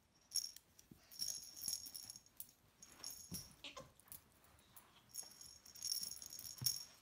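A small jingling rattle shaken in four short bursts, bright and metallic, as a small dog tugs a cloth toy out of a baby's hands.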